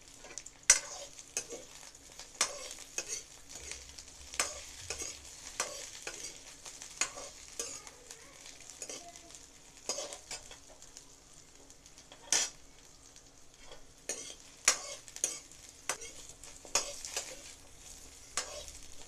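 Drumstick pieces and potato wedges frying in hot oil in a metal kadai, with a steady faint sizzle. A metal spatula stirs them, clinking and scraping against the pan at irregular intervals.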